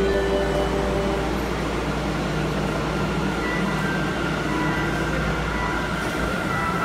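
Sendai Subway Tozai Line 2000-series train standing at the platform with its doors open, its equipment giving a steady hum and low rumble with a faint high whine.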